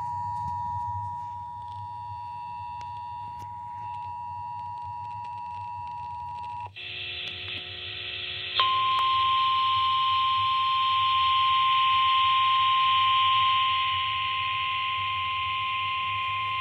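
Emergency Alert System attention signal: the steady two-tone alert held for about seven seconds. After a brief jumble of other tones, a single louder steady tone, the NOAA Weather Radio warning alarm, sounds over radio hiss and cuts off near the end.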